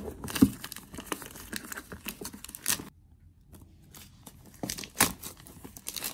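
Plastic packaging wrap being torn and crinkled off a cardboard product box, in quick crackling rips. The ripping pauses briefly about halfway, then picks up again with a sharper rip about five seconds in.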